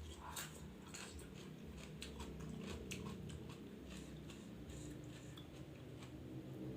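A person chewing and biting food close to the microphone, with many small irregular crunches and wet clicks.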